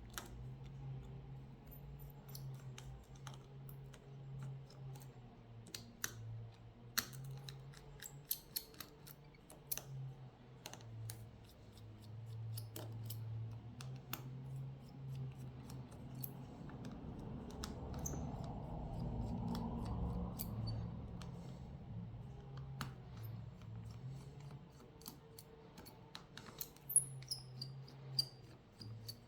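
Small screwdriver and tweezer clicks and taps on a smartphone's plastic and metal frame as its screws are taken out. A low hum comes and goes under the clicks, and a louder stretch of rustling handling comes about two-thirds of the way through.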